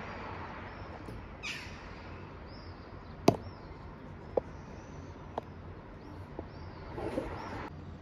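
Outdoor ambience with small birds chirping again and again in short high notes. Sharp clicks come about once a second, the loudest a little past three seconds in, with a brief falling swish about a second and a half in.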